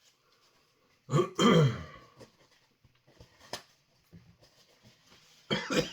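A man clearing his throat and coughing, a harsh double burst about a second in and again near the end: the fine dust of a freeze-dried chilli ice cream bar is catching in his throat.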